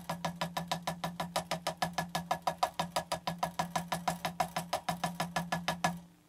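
A single drumstick bouncing on a practice pad, driven by the fingers alone with the wrist held still (finger, or 'flying fingers', technique). The strokes come in an even stream of about seven a second and stop just before the end.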